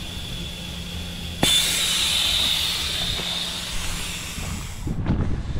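Air rushing out of a tyre through a rapid-connect valve as it is let down. A fainter hiss with a thin whistle jumps suddenly to a much louder rush of air about a second and a half in, then stops abruptly shortly before the end.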